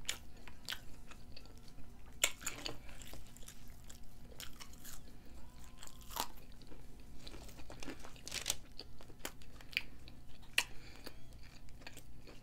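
Close-miked mukbang chewing of fries: irregular crunches, wet lip smacks and mouth clicks, with no talking.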